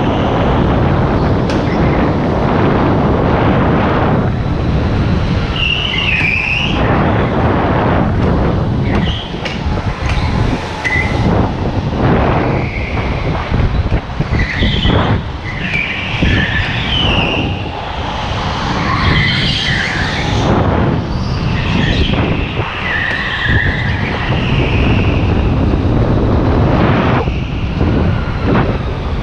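Go-kart tyres squealing in short repeated bursts as it slides through the corners of a smooth concrete indoor track, over a steady rumble of wind buffeting the onboard microphone.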